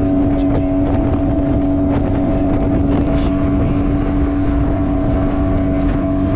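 Small motorboat's engine running at a steady speed, one unchanging drone over the rush of wind and water, with scattered short knocks.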